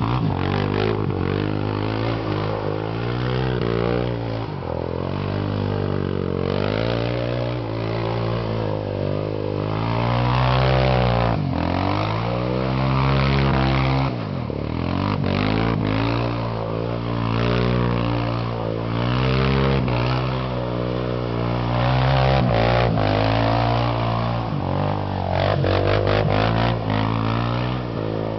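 Yamaha Wolverine ATV engine revving up and down over and over as the quad spins donuts on ice, its pitch rising and falling with each spin.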